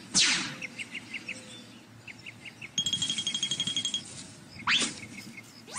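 Cartoon sound effects: a quick falling whoosh as a character dashes off in a puff of dust, then light bird chirps, a rapid rattling trill lasting about a second, and rising whooshes near the end.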